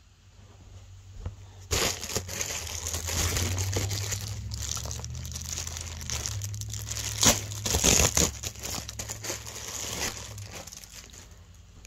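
Packaging crinkling and rustling as a plush toy is unwrapped. It starts about two seconds in, with sharper crackles around the middle, and fades near the end.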